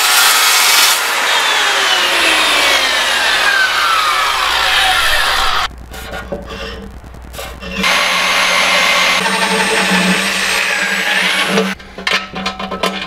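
A loud noisy stretch with slowly falling tones runs for the first five or so seconds. About eight seconds in, an electric drill runs, boring holes through the aluminum sheet wall of a sump box: a steady motor hum with a high whine that rises briefly before it stops.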